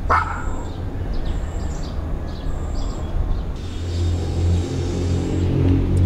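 A small dog barks once, sharply, right at the start. After it a steady low rumble carries on, with faint short high chirps.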